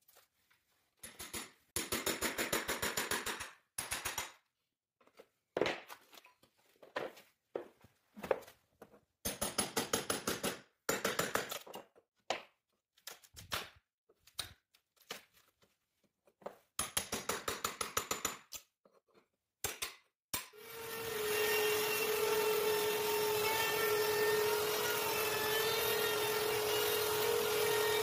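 Hand chisel working loose strips of wood flooring in short bursts of rapid scraping strokes, with pauses between them. About twenty seconds in, a small electric trim router starts, winds up and runs at a steady pitch, louder than the chiselling.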